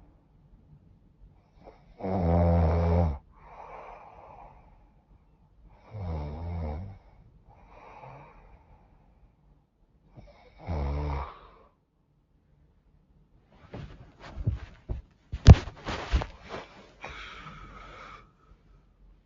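A woman snoring in her sleep with a runny, stuffed-up nose. There are three loud, rasping snores about four seconds apart, each followed by a softer breath, then a cluster of sharp clicks and short snuffly noises.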